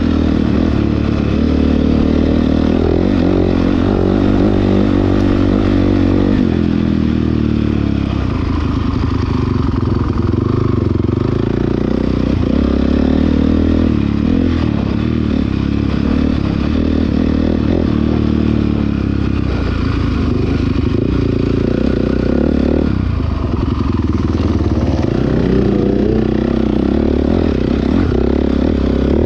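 Honda dirt bike engine running hard, heard close up from the bike itself, its revs rising and falling over and over as the rider works the throttle.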